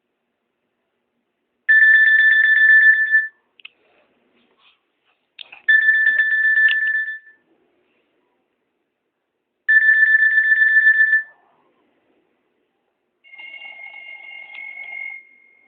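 Nokia E75 ringtone played through a Nokia 220 4G phone's speaker: a high, rapidly trilling tone in three rings of about a second and a half, roughly four seconds apart. Near the end comes a quieter trill with a different pitch.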